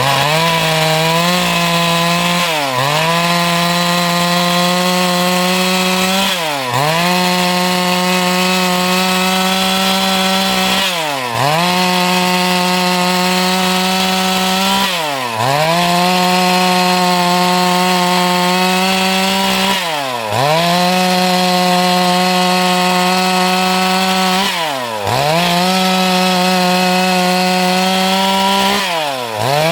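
Stihl MS 382 single-cylinder two-stroke chainsaw running at high revs while cutting wood. About every four to five seconds the engine pitch drops sharply and quickly climbs back.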